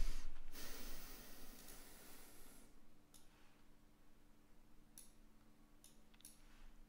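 Faint rustling for the first couple of seconds, fading, then a few scattered soft clicks, over a low steady electrical hum.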